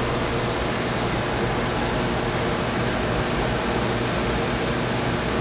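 Steady fan-like whir: an even hiss over a low hum, unchanging throughout.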